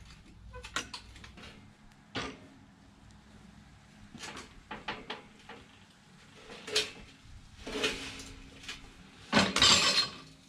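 Steel tube frame being shoved off a box trailer: irregular metal knocks and clanks as the frame shifts on the trailer, with a longer, louder clatter near the end.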